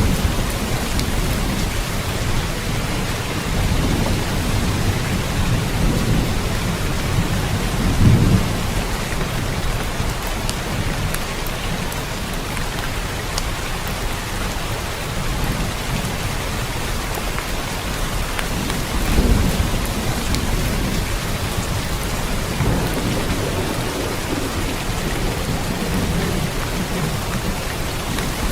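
Steady heavy rain hiss, with low rolling rumbles of thunder rising and fading several times, the strongest about eight seconds in and again near nineteen seconds.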